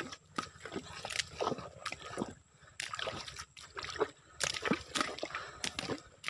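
Footsteps squelching in deep, soft mud, a wet sucking squelch with each step at an uneven walking pace.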